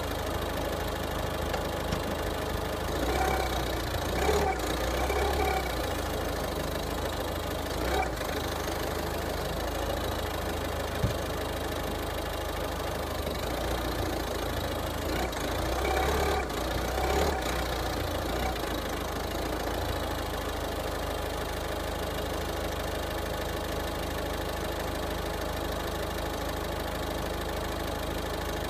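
2011 Mazda 3's engine idling steadily, rising briefly twice as the throttle is blipped, with a single sharp click near the middle. The owner suspects a broken motor mount behind a metallic rattle under throttle.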